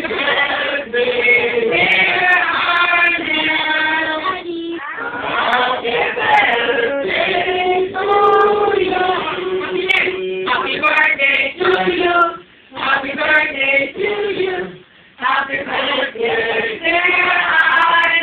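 A family group of men, women and children singing a birthday song together, with a few short breaks between phrases.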